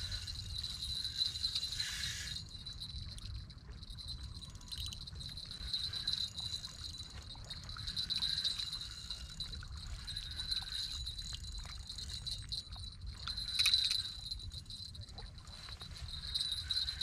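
Spinning reel being cranked against a fish on a hard-bent rod: a high metallic whir that swells and fades, with scattered light clicks, over low wind rumble on the microphone.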